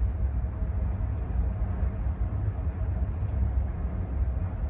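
Search-and-rescue helicopter hovering, heard as a steady low rumble with a faint steady hum above it, with wind on the microphone.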